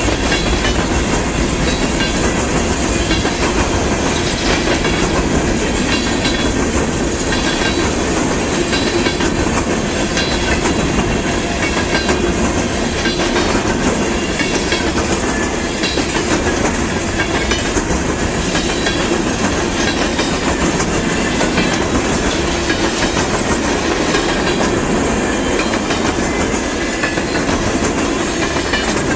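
A freight train's cars rolling steadily past at close range, with the steady, loud noise of steel wheels on the rails.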